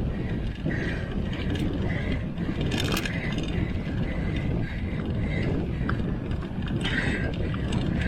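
Mountain bike drivetrain ratcheting and rattling in intermittent bursts while riding, over a steady low rumble.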